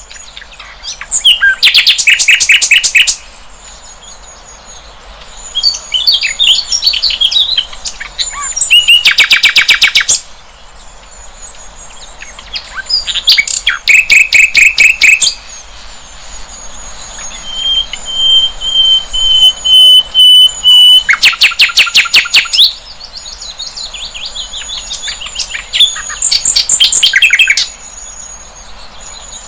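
Sikatan londo flycatcher singing: loud, rapid trilled phrases of about two seconds each, repeated every few seconds. Softer twittering falls between the phrases, and there is one long held whistle midway. A thin, steady high-pitched tone runs underneath.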